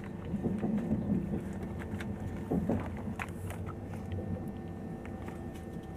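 Interior running noise of a Eurostar passenger train carriage: a steady low rumble with a constant hum of several tones, and a few brief louder noises in the first three seconds.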